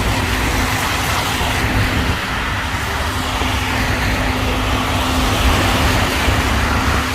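A car driving, heard from inside the cabin: a steady rumble of engine and road noise with a constant low hum.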